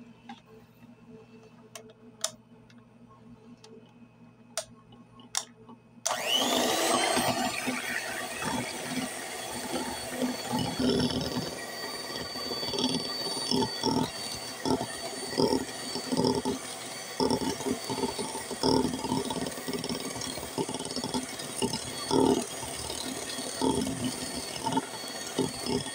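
Electric hand mixer switching on about six seconds in and running steadily, its beaters whipping egg whites for a meringue in a ceramic bowl with many irregular knocks against the bowl. Before it starts there are only a few light clicks.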